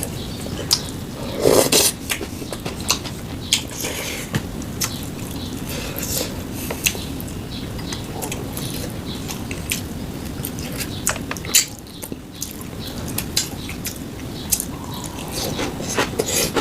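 A person eating kimchi stew and rice: chewing, with many sharp clicks of utensils against dishes and a louder clatter about a second and a half in.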